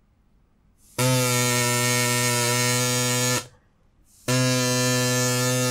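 Drinking-straw pipe, lengthened by a second straw pushed into the first, blown in two long, steady, low notes, the second a little shorter; the added length lowers the pitch, giving a sound like a heavy vehicle's horn.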